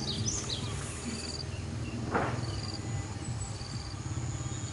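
Insects chirping outdoors in short repeated trills, about one every second or two, over a steady low hum, with a brief bump about two seconds in.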